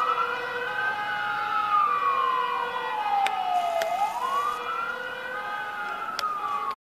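Fire engine siren wailing, its pitch rising quickly and then sliding slowly down, twice over, growing somewhat fainter as the truck pulls away. A few sharp clicks sound over it, and it cuts off suddenly at the very end.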